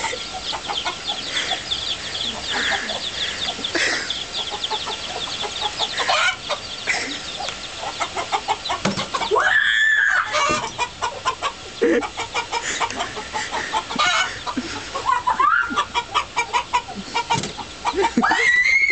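Chickens clucking continuously, with a few longer calls that rise and fall in pitch, about ten seconds in, around fifteen seconds and near the end.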